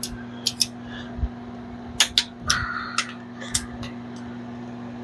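Torque wrench on small-block Chevy connecting-rod nuts, giving a series of sharp metallic clicks, some in quick pairs, as the rod nuts are brought up to torque. A brief squeak about two and a half seconds in.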